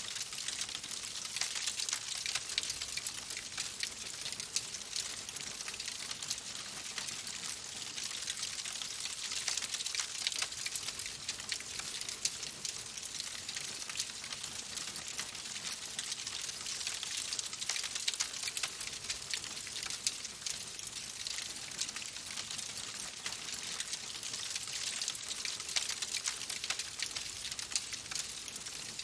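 Wood fire burning in a fireplace: a steady hiss thick with many small crackles and pops.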